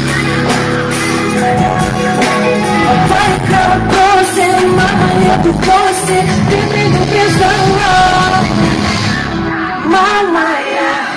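Live pop music with singing, played loud over a concert sound system, with a steady beat throughout.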